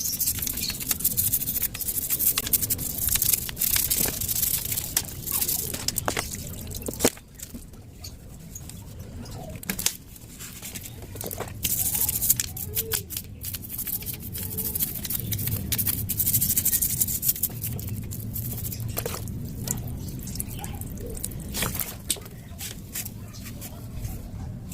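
Brush scrubbing a wet motorcycle cylinder block with water splashing, played back sped up: a dense run of quick scrapes, splashes and knocks.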